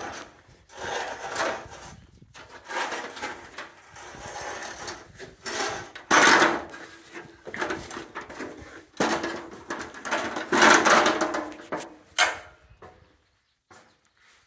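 A ladder being moved and repositioned: irregular scraping and rubbing, loudest about six seconds in and again around ten to eleven seconds, with a sharp knock near twelve seconds.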